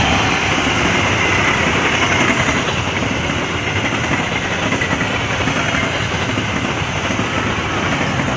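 Harina express train, a diesel locomotive followed by passenger coaches, passing close by at speed. It makes a loud, steady rushing noise of wheels on the rails, loudest at the start as the locomotive goes by.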